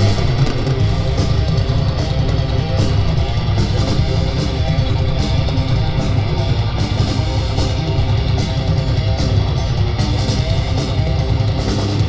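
Heavy metal band playing at a sound check: distorted electric guitars and bass over drums, with cymbal hits recurring regularly.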